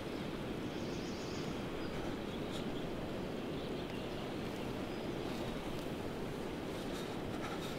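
Steady outdoor background noise, a low even rush, with a few faint high ticks scattered through it.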